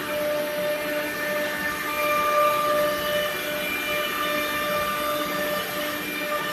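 CNC router spindle cutting a wood panel: a steady, several-toned machine whine over a rushing noise, the tones swelling and fading slightly as the cutter moves through the board.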